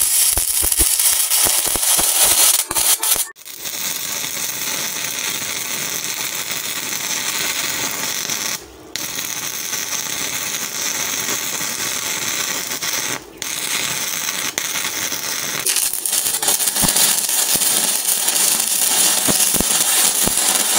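Stick (SMAW) welding arc burning a 1/8-inch E6011 electrode at 80 amps, making a steady crackling hiss as the first (root) pass is laid with a whip-and-pause motion. The arc drops out briefly three times, about 3, 9 and 13 seconds in.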